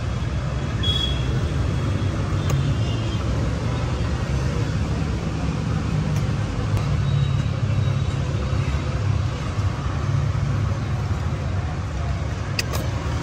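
Steady low rumble of road traffic passing close by, with a couple of sharp clicks near the end.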